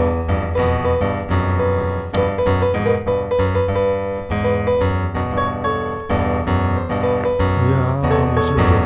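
Background piano music, a steady flow of sustained keyboard notes and chords.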